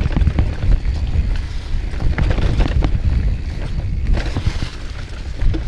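Mountain bike rolling along a trail: a constant low rumble of wind buffeting the microphone, with rapid clicks and rattles from the tyres and bike over the rough ground.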